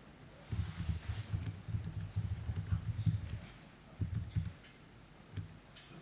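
Rapid, uneven tapping on a laptop keyboard, dull thuds with sharp clicks, in a quick run from about half a second in to about three seconds and a shorter burst around four seconds.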